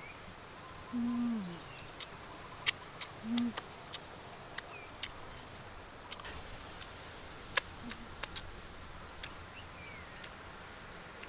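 Wet mouth clicks and lip smacks of someone chewing and sucking raw honeycomb, scattered irregularly throughout. About a second in comes a low hummed "mmm" that slides down in pitch, and a shorter one a little after three seconds.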